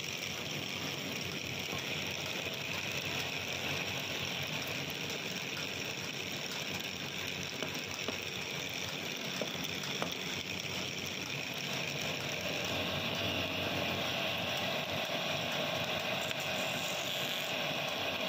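Wood lathe running with a steady mechanical whir and rattle, a little louder with an added mid-pitched hum from about two-thirds of the way through.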